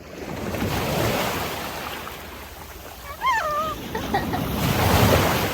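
A rushing noise that swells about a second in and again near the end, with a short voice in between.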